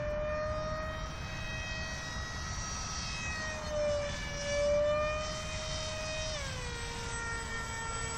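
Radio-controlled model Alpha Jet's motor whining steadily as it flies overhead. The whine swells a little a few seconds in, then its pitch drops about six seconds in.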